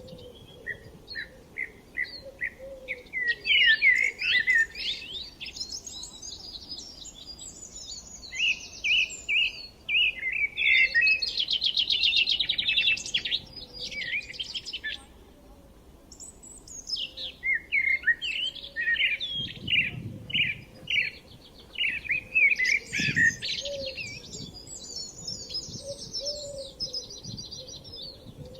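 Songbirds singing and chirping in quick phrases of high notes, with a fast trill about eleven seconds in and a short lull around fifteen seconds.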